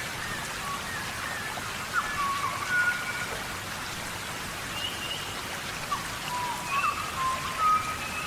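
Steady rain falling in a tropical rainforest, an even hiss of drops. Short high whistling calls come and go over it, several times, and are the loudest thing at moments.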